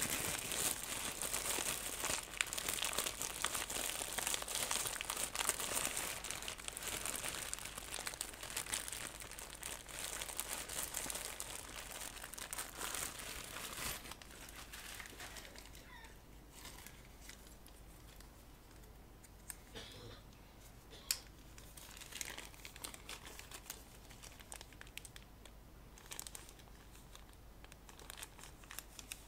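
Clear plastic zip-lock bag of electronic components crinkling as it is rummaged through for transistors, busy for about the first half. It then goes quieter, with only a few small clicks, one sharper one about two-thirds of the way in.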